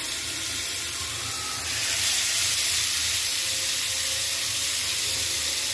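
Spice-marinated fish pieces shallow-frying in hot oil in a pan: a steady sizzle and hiss that grows louder about two seconds in.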